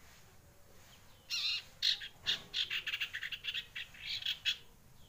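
A one-month-old juvenile common iora (cipoh sirtu) practising its song: from about a second in, a rapid run of short, high chirping notes lasting about three seconds.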